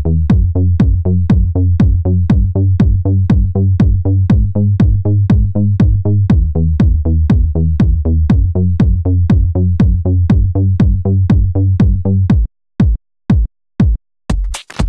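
Electronic dance music with a fast, even drum-machine beat, about four beats a second, over a heavy bass line; about twelve seconds in the bass drops out and only the beat is left.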